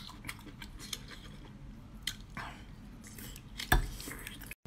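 Close-up mouth sounds of someone chewing a raw geoduck clam: soft wet chewing with scattered clicks and smacks, and one sharp knock shortly before the end.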